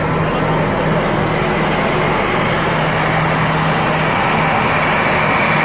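Jet engines of a twin-engine Airbus A320 airliner rolling along the runway after landing: a steady, even rushing noise with a low hum underneath.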